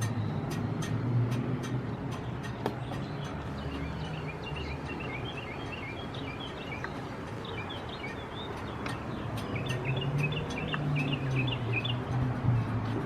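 Small birds chirping rapidly over the steady hum and regular clicking of railroad cab signal code generator relays at a trackside signal location. The chirping starts a few seconds in; the clicking is plainest at the start.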